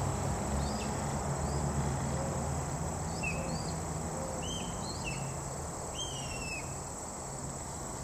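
Late-summer outdoor ambience: a steady, high-pitched drone of crickets and other insects, with birds giving short, down-slurred chirps at intervals, over a faint low hum.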